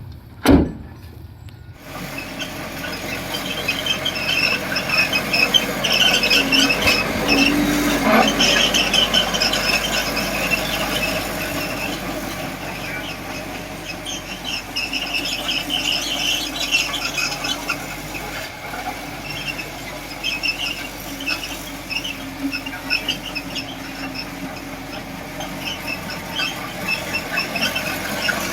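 Miniature model bulldozer working soil, its drive and tracks giving off an uneven, wavering high squeal over a steady mechanical running noise. A short sharp knock comes about half a second in.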